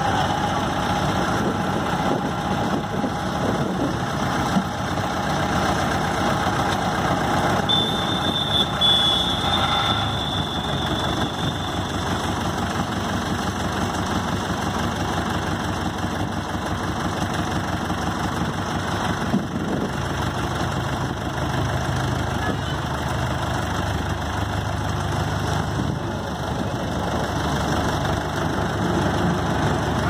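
Vintage road roller's engine running at a steady idle. A thin high whine rises above it for a few seconds about eight seconds in.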